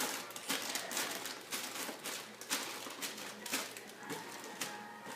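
Irregular rustling and light taps, close to the microphone, thinning out near the end.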